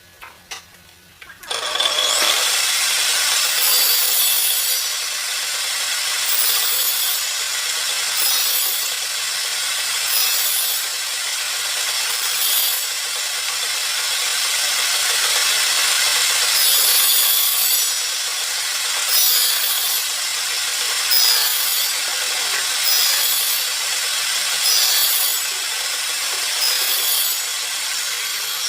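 Wood being sawn: a long, even run of noisy sawing that starts about a second and a half in, pulsing every second or two.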